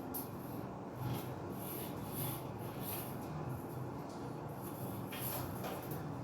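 Soft, irregular rubbing and scraping of hands working on a shower head fitting, over a steady low hum.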